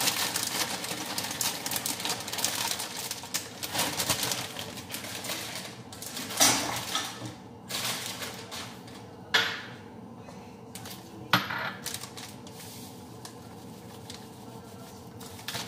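Plastic bag of shredded cheese crinkling and rustling as the cheese is shaken out, for the first several seconds. Then three separate sharp clinks of kitchenware, dishes or utensils knocking, about six, nine and eleven seconds in.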